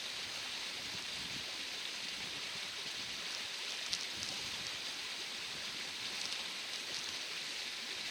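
Small stream babbling steadily, with a few small splashes, the sharpest about four seconds in.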